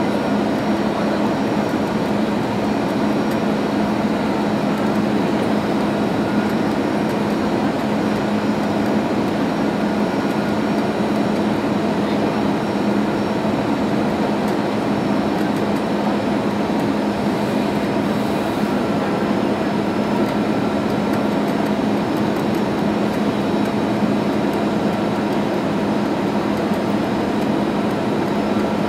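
Jet airliner cabin noise from a seat by the wing, during the descent on approach: engine and airflow noise held steady, with a constant low hum underneath.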